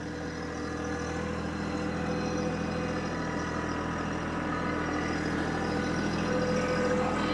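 TYM T264 compact tractor's diesel engine running steadily at a slow, even pace while it pulls a tow-behind fertilizer spreader across tilled ground.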